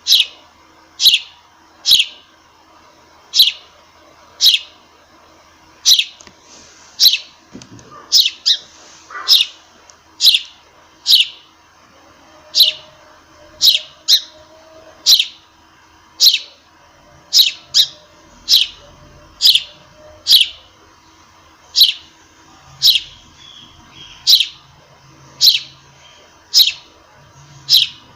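Sparrow chirping: single short, sharp chirps repeated about once a second, now and then two in quick succession, close and loud over a faint steady hum.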